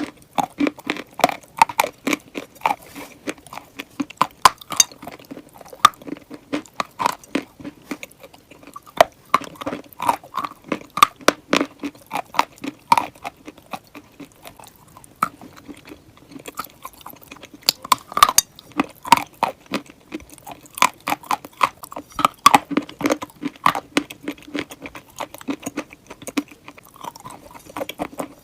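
Close-miked biting and chewing of hard, crunchy edible clay-chalk: dense sharp crunches and crackles that come in quick irregular clusters.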